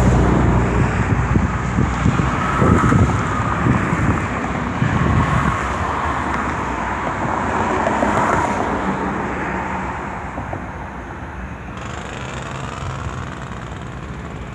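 Aircraft engine noise from a plane that has just passed the airfield, a steady rush with a faint whine that slowly fades away, with wind gusting on the microphone.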